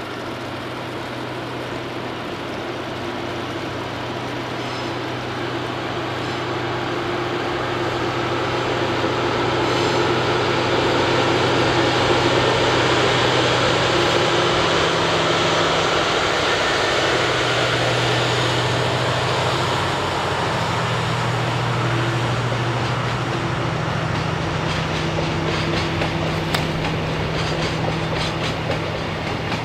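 Diesel-hauled freight train passing. The locomotive's engine hum grows louder over the first ten seconds or so and shifts in pitch. In the last few seconds the wagons' wheels clatter over the rail joints in a rhythmic clickety-clack.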